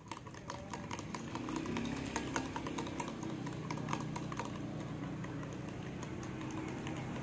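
Metal spoon clicking and scraping quickly against a small bowl, stirring a raw egg and MSG together to dissolve it. From about a second in, a steady low motor drone runs in the background.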